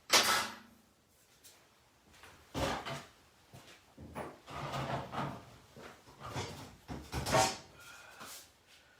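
Shop tools and metal parts being handled. A sharp clank comes right at the start, followed by irregular knocks, scrapes and rattles, with the loudest again about seven seconds in.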